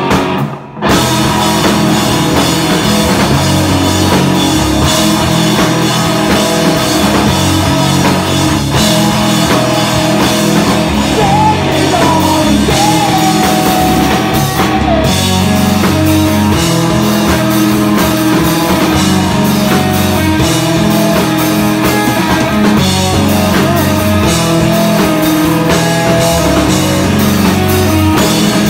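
Rock band playing loud and steadily: drum kit and electric guitars, with a short break in the music about half a second in.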